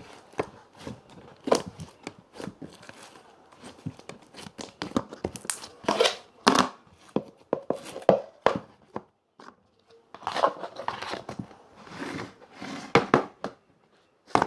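Crunchy slime being squeezed and kneaded by hand, giving off irregular crackling and popping snaps, busiest in two spells with short pauses between.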